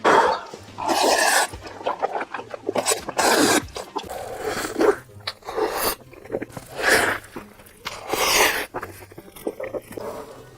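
Close-miked eating: wet chewing and mouth noises from big mouthfuls, in loud irregular bursts with clicks and breathy gaps.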